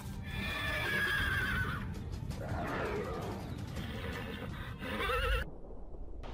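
A horse whinnying several times in shrill, wavering calls over background music, cutting off suddenly a little after five seconds in.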